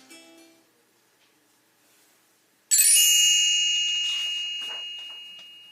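A single bright chime struck about two and a half seconds in, ringing and slowly fading over about three seconds: the read-aloud's page-turn signal. It comes after a short stretch of near silence, with the last faint notes of plucked guitar fading at the start.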